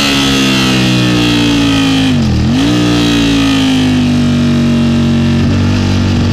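Aprilia sportbike engine pulling at high revs, heard from an onboard camera behind the fairing. Its pitch sags sharply for a moment about two seconds in and comes straight back, then holds almost steady, easing down slowly.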